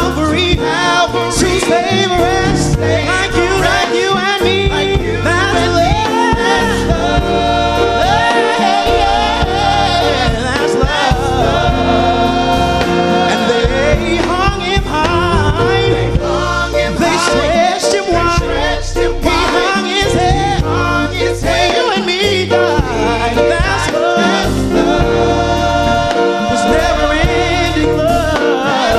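Gospel vocal group singing in close harmony, a continuous section of a worship song medley.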